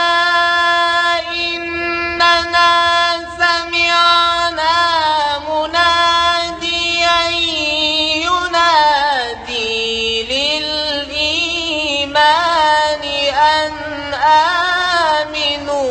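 A man's voice reciting the Quran in the melodic, chanted style, drawing out the words in long held notes. It holds one steady note for the first half, then drops lower and winds through quick ornamented turns.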